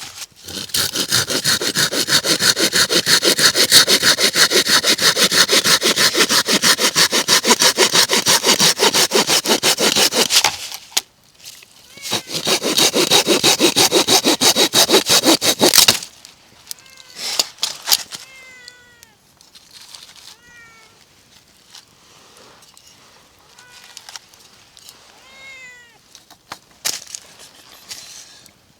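A hand saw cutting wood in fast, even strokes, in two loud bouts separated by a short pause. After that a cat gives several short, soft meows.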